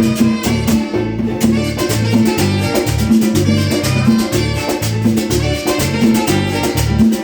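Instrumental Latin dance music in the salsa style: a bass line and percussion playing a steady, even beat, with no singing.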